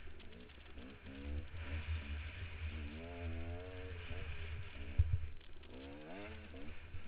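Dirt bike engine revving up and down in repeated surges under load on a steep dirt climb, muffled, with wind rumble on the microphone. A sharp thump about five seconds in.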